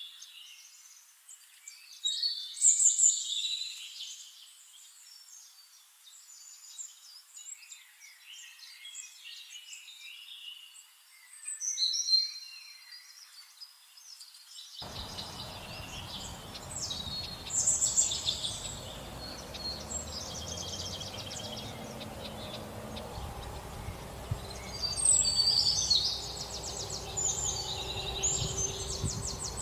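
Wild birds chirping and calling, with a few louder calls scattered through, over outdoor background noise that thickens into a steady low hum about halfway.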